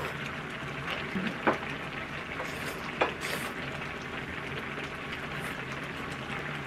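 Spicy chicken-feet soup simmering in a pot on a portable gas burner, a steady bubbling hiss. Over it come a few sharp clicks of chopsticks and a ladle against the bowls and pot, the loudest about a second and a half in and again about three seconds in.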